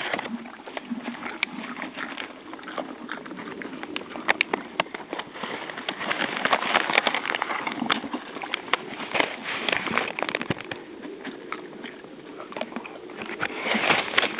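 Horses (mares) eating popcorn: a dense, irregular run of crunching and crackling clicks that thickens about six seconds in and again near the end.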